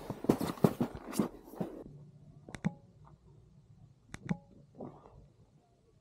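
Snowboard sliding over ridged, slushy snow: a rough scraping rumble with rapid chattering knocks, which stops about two seconds in. After that there are only a few isolated sharp clicks.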